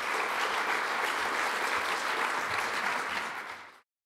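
Audience applauding steadily, then cut off suddenly near the end.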